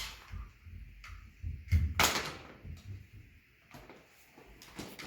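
Knocks and clicks of dinosaur puzzle-kit parts being handled and fitted together, the loudest two about two seconds in, with a few lighter ticks later.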